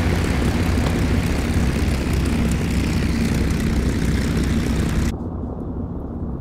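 Single piston-engined propeller fighter in flight, its engine and propeller making a steady, even drone. About five seconds in the sound turns muffled and loses its highs, as heard from inside the cockpit.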